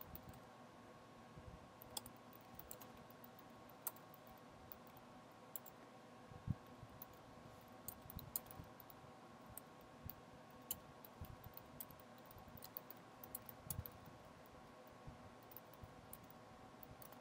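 Faint, irregular clicks of typing on a computer keyboard, keystrokes coming in scattered short runs, over a faint steady hum.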